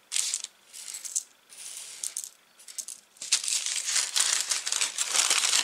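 Small plastic stitch markers clicking and rattling as a hand gathers them into a packet. From about three seconds in, the packet crinkles steadily as it is handled and folded.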